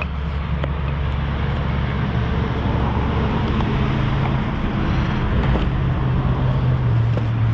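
Steady low engine drone, like a vehicle or motor running nearby, with a few faint clicks on top.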